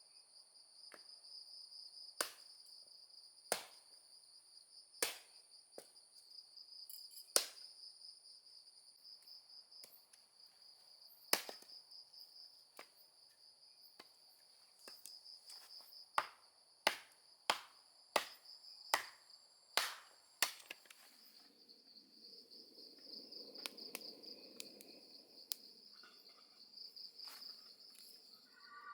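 Insects trilling steadily and high, with sharp knocks over it: spaced one to two seconds apart at first, then a quicker run of about six in the middle, like chopping or hammering at camp.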